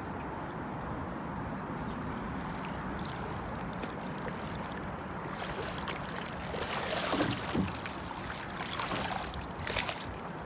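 Steady rush of river current, with several splashes from about six seconds in as a rainbow trout thrashes and is scooped into a landing net.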